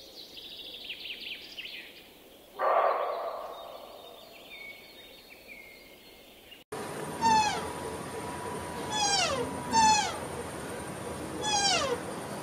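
Deer calling: four short, high calls, each falling in pitch, in the second half. Before them, about two and a half seconds in, a louder, rougher call starts suddenly and fades.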